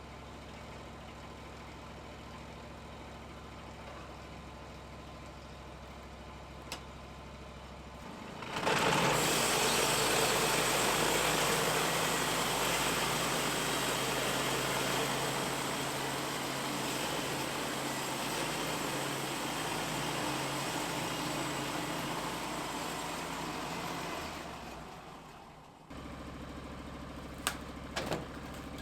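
Sawmill engine running low and steady, then from about eight seconds in the mill runs loud at full speed for some fifteen seconds as it cuts through a log, dying away near the end. The low engine hum returns, with a few sharp clicks.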